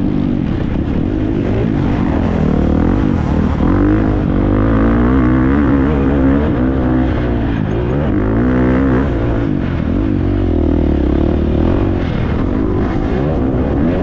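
Husqvarna FC350 motocross bike's 350 cc single-cylinder four-stroke engine racing, repeatedly revving up and easing off, its pitch rising and falling every second or two.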